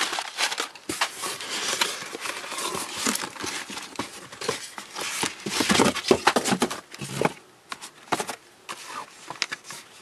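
Crumpled brown packing paper and cardboard being handled in a shipping carton: a dense crackling rustle for about seven seconds, thinning to scattered crackles and light taps near the end.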